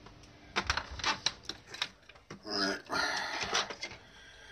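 A quick run of light clicks and taps from hands handling the opened plastic case of a cheap multimeter and its battery snap clip, mostly in the first two seconds.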